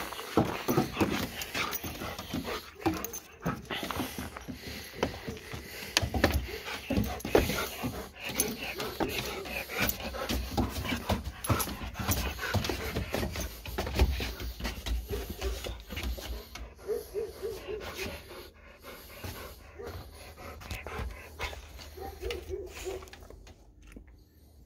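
A goldendoodle panting while its claws tap and skitter on wooden deck boards as it prances and spins in excitement for food. The tapping is dense at first and thins out in the last third as the dog settles and sits.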